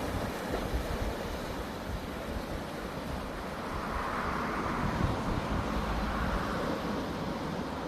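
Sea waves washing onto the shore, one wash swelling up about halfway through, with wind buffeting the microphone.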